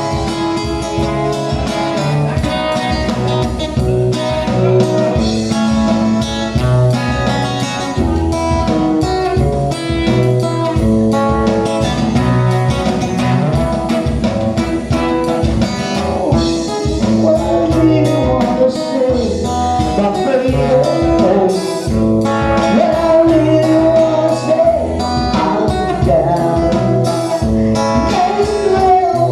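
Live band music: a guitar-led tune over bass and drums with a steady beat.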